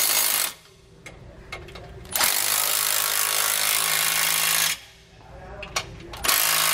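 Cordless impact wrench with a 15 mm socket running down locking nuts on carriage bolts in short runs. One run ends just after the start, a longer one of about two and a half seconds comes in the middle, and another begins near the end.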